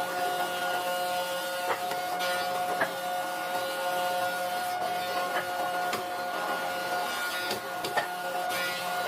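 An electric power tool motor running steadily with a constant whine, worked against wood, with a few light clicks or knocks.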